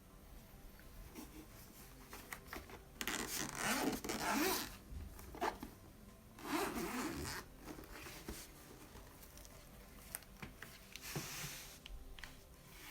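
Zipper of a keyboard carrying case being pulled open in two long strokes, about three and six and a half seconds in, with a shorter, fainter pull near the end and light clicks of handling between.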